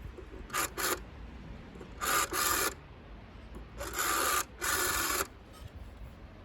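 A telephone ringing in a double-ring cadence: three 'ring-ring' pairs, each pair longer than the last, with a rasping, buzzy ring.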